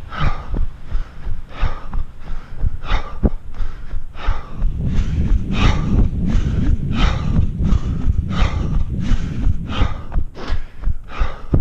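A runner's hard, rhythmic breathing mixed with footfalls on a towpath, about two strokes a second, with a low rumble growing from about five seconds in.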